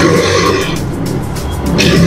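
Blade sharpening machine's grinding wheel grinding a long straight cutting blade under water-mixed cutting-oil coolant, throwing sparks. The harsh grinding noise is strong at first, eases about a second in, and swells again near the end as the head travels along the blade.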